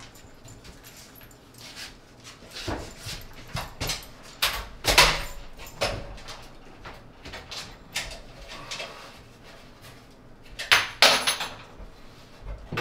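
Stainless steel double kitchen sink being worked loose and tilted up out of a laminate countertop, past a broken hold-down clip. Irregular metal knocks, scrapes and creaks, loudest about five seconds in and again near eleven seconds.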